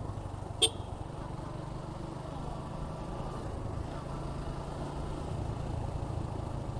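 Suzuki Gixxer 155's single-cylinder engine running steadily at an easy cruising pace, with one short sharp click just over half a second in.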